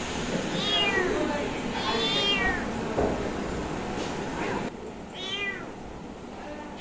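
Kitten meowing repeatedly: about four short, high meows, each rising and then falling in pitch, a second or more apart.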